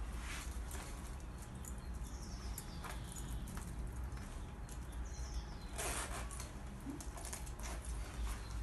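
Rustling and light clicks of a leather jacket being handled and adjusted on the body, with a louder rustle about six seconds in.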